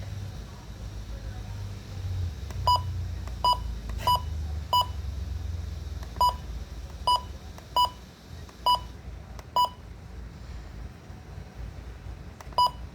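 Midland WR-120 weather radio sounding ten short, identical electronic beeps at uneven intervals. A low rumble runs underneath during the first half.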